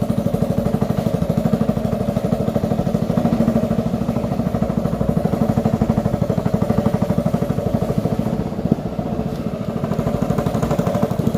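Small boat's engine running steadily at an even, fast beat.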